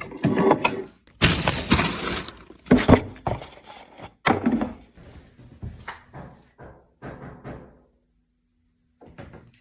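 A loud crash like glass breaking, then a run of sharp knocks on wood that grow fainter.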